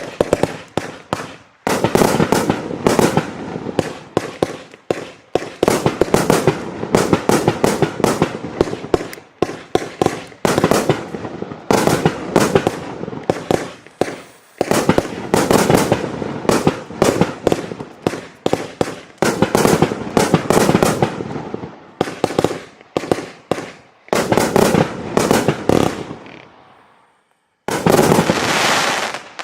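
A 49-shot, 1.2-inch consumer firework cake firing: rapid shots and aerial bangs in volleys with brief lulls between them. It ends in a dense burst of shots.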